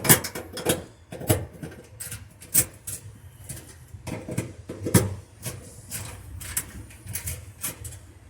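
Irregular metallic clicks and taps of a 7 mm socket tool loosening screws on a gas dryer, a little at a time.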